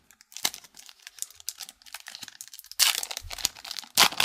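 Hockey card pack's wrapper being torn open by hand: a run of crinkling and crackling, with two louder tearing bursts, about three seconds in and near the end.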